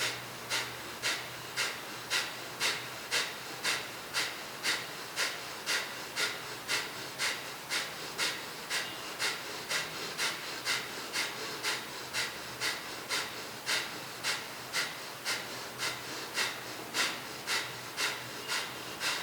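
Kapalbhati pranayama breathing: a person's sharp, forceful exhales through the nose in a steady rhythm of about two a second, each one a short hiss. The string of exhales stops near the end.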